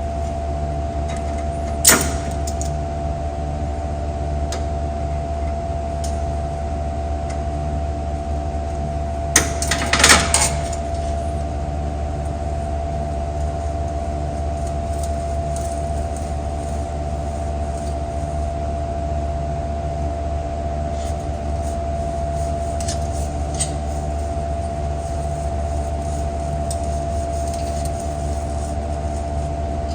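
A steady low hum with a faint steady whine over it throughout. A single sharp metal click comes about two seconds in, and a short clatter of small metal parts comes around ten seconds, as the window crank mechanism of a 1937 Nash door is handled.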